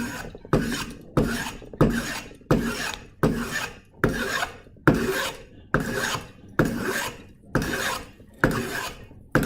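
Hand plane being pushed in quick repeated strokes along the corner of a square wood blank, about three strokes every two seconds, each starting sharply and tailing off as it shaves wood away. The corners are being planed down to make the blank easier to round off on a lathe.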